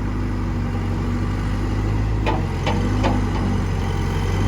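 New Holland LB75B backhoe loader's diesel engine running steadily, with a few short knocks around the middle.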